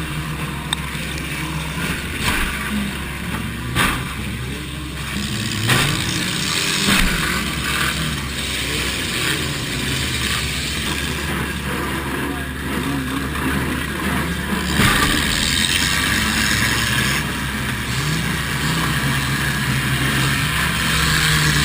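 A demolition derby car's four-cylinder engine revving up and down, heard from inside the car, with a few sharp crunching bangs of car-to-car hits.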